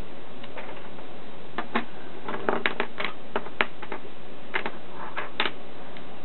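Small laser-cut plastic frame parts clicking and clacking against each other and the tabletop as they are picked up and set down, in irregular bunches of sharp taps.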